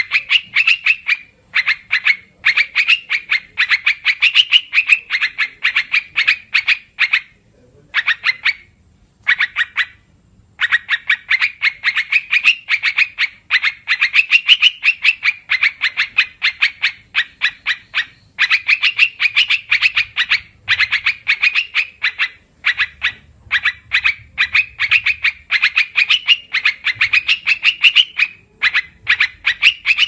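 Bulbul lure-call recording: a fast chattering song of short, sharp notes, in long runs broken by a few brief pauses.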